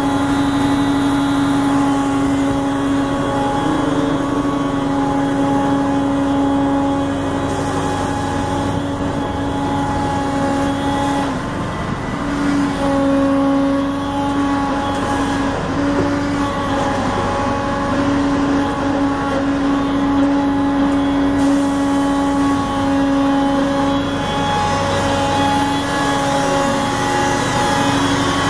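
Road milling machine's diesel engine running steadily at idle, with a strong steady droning tone over it.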